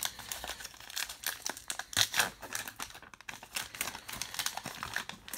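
Baseball card pack wrapper crinkling and being torn open, an irregular run of crackles with the loudest tearing about two seconds in.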